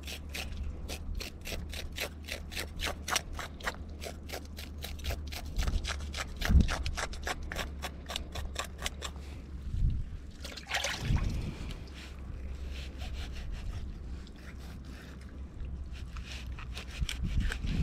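A knife scraping the scales off a caraúna (surgeonfish) on rock, in quick repeated strokes, several a second, that pause briefly partway through.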